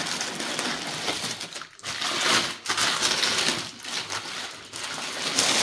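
Packaging being unwrapped by hand: paper and plastic wrapping rustling and crinkling in bursts, with short pauses between handfuls.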